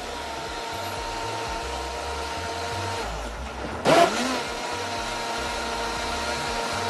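Countertop electric blender running at speed, blending a thick blueberry yogurt milkshake. The motor drones steadily, changes note about three seconds in, then surges loudly again about a second later.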